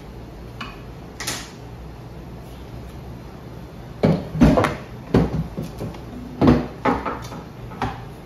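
Knocks and clatter of water-filter housings and cartridges being handled: a couple of light clicks early, then a run of sharper knocks from about four seconds in, over a steady low hum.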